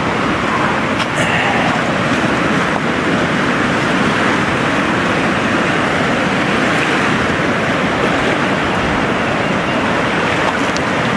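A river in flash flood, its brown water rushing steadily over and across gravel.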